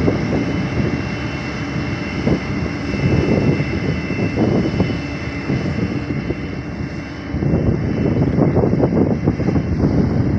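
Diesel engine of heavy road-construction machinery running steadily, getting louder about seven and a half seconds in.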